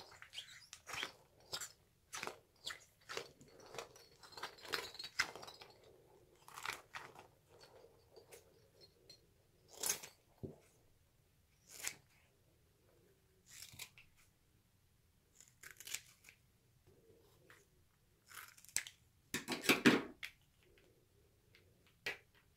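Scissors snipping through soft rubber puffer stress balls: a string of separate sharp cuts with quieter handling of the rubber in between, and a quick run of cuts near the end that is the loudest.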